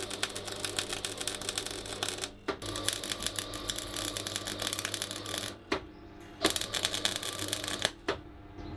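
MIG welder arc crackling and sizzling as welds are laid on the steel bars of a grate. It comes in three runs, with short breaks about two and a half and six seconds in and a stop near the end, over a steady low hum.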